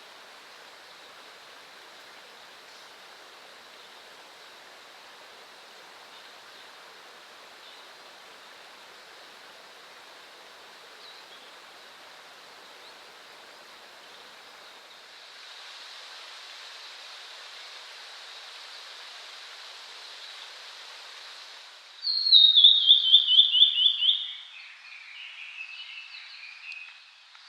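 Steady rushing noise of a stream, a little louder in the later part, which cuts off abruptly near the end. A blue-and-white flycatcher then sings a loud phrase of quick notes falling in pitch, followed by softer, lower warbled notes.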